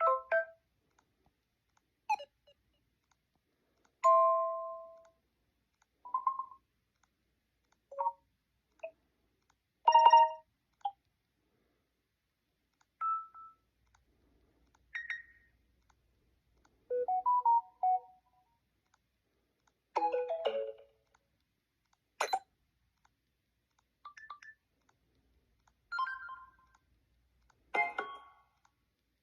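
Samsung Galaxy A15 5G notification tones played one after another: a short, different chime or jingle about every two seconds, with silence between them.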